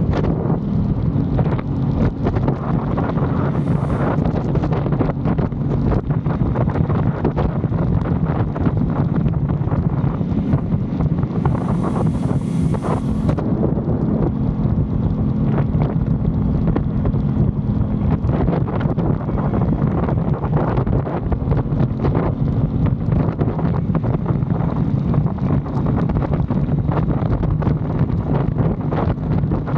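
Heavy wind noise on the microphone over an Aprilia Tuono 660's parallel-twin engine, running at a steady pitch as the motorcycle cruises.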